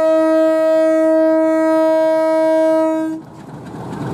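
Bangladesh Railway diesel locomotive's horn sounding one long steady blast that cuts off about three seconds in, followed by the rising rumble of the engine and train as it rolls along the platform.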